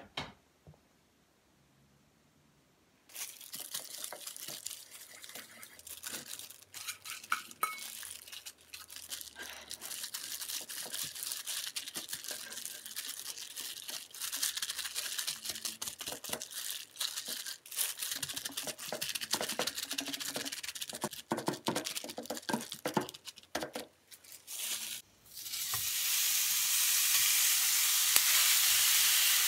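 Hands squishing and mixing ground beef with a soy-sauce marinade in a glass dish: an irregular, wet, crackling sound. About 25 seconds in, the seasoned beef goes into a heated frying pan and starts sizzling steadily and loudly.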